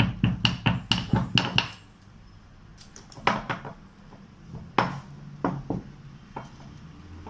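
Pestle pounding in a mortar: a quick run of strikes, about four a second, for the first two seconds, then a few scattered knocks.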